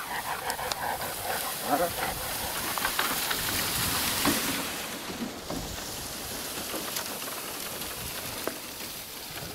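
Leafy cut branches rustling and brushing close against the microphone as a loaded cart of brushwood is hauled along, loudest about three to four seconds in. There is a short whine near two seconds, then a softer steady hiss.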